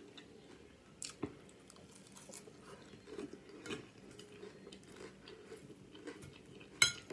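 Close-up chewing and crunching of crispy chicken salad, a run of irregular small crunches and wet mouth sounds, with a sharp click just before the end.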